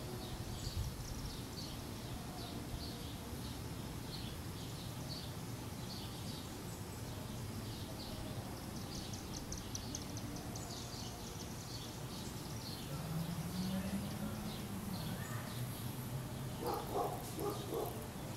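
Small birds chirping over and over, about two short high chirps a second, with a quicker run of chirps about nine seconds in. Under them runs a steady low outdoor rumble.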